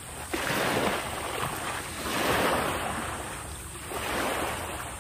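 Small waves washing onto the beach, the rushing noise swelling and fading about three times, with some wind on the microphone.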